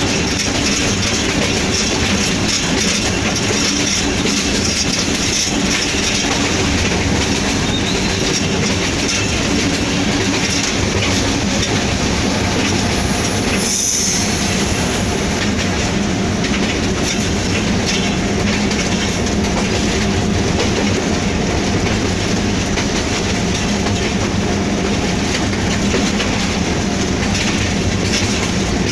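Inside the cab of a moving Hitachi-built PHA-20 diesel-electric locomotive: a steady, loud mix of engine noise and wheels running over the track. There is one short high hiss about halfway through.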